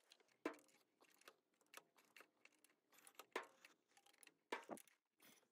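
Near silence with a few faint, scattered clicks and light knocks: a gloved hand handling hoses and parts in an engine bay.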